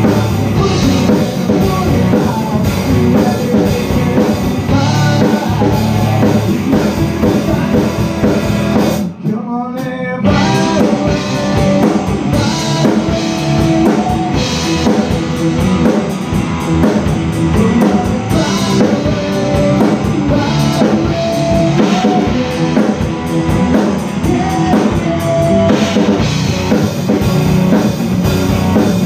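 Rock band playing: electric guitars over a Tama drum kit. About nine seconds in the drums and low end drop out for about a second, leaving a lone rising guitar phrase, then the full band comes back in.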